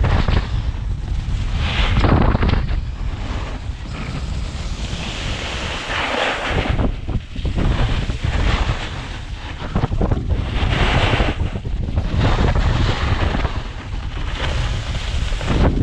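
Wind buffeting the microphone: a loud rumbling rush that swells and eases in gusts.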